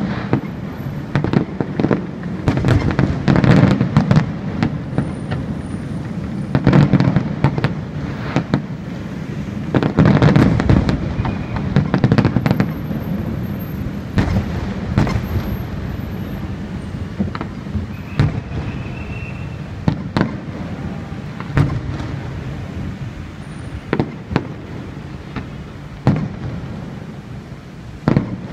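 Aerial fireworks shells bursting: a run of deep booms and sharp cracks with a rumbling low tail between them. The booms come thickest in the first dozen seconds, then thin out to single cracks every few seconds.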